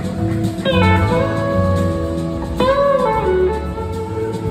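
Live rock band playing an instrumental passage: an electric slide guitar plays lead phrases whose notes glide in pitch, over drums, bass and organ.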